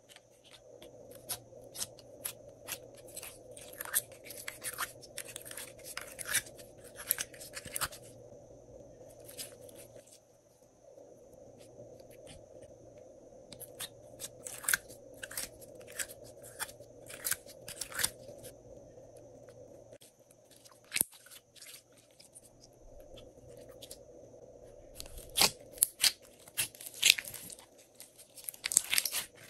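Glossy slime being pressed and pulled out of the cells of a clear plastic palette, giving groups of sticky crackling and popping clicks. The clicks are loudest near the end, as the slime is tipped into a glass tray. A faint steady hum runs underneath.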